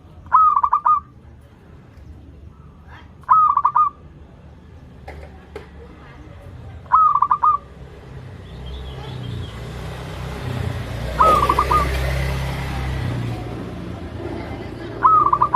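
Zebra dove (perkutut) cooing: five short, rapidly pulsed coos, repeated about every three to four seconds. A rushing background noise with a low rumble swells in the middle and fades again.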